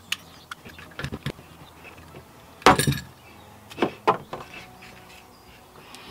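Small plastic and metal parts being handled at the DC terminals of a Victron MultiPlus inverter as the terminal cover and fittings come off: a series of short separate clicks and clinks, the loudest a brief clatter about three seconds in.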